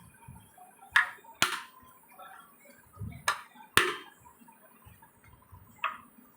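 Sharp knocks struck on a reassembled fan motor, five in all: two pairs and a lighter one near the end. The knocks are given to seat the bearings and free a rotor that is running tight.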